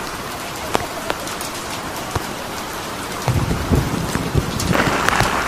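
Steady rain pattering, with scattered single drops ticking. A low rumble joins about three seconds in, and the rain hiss grows louder near the end.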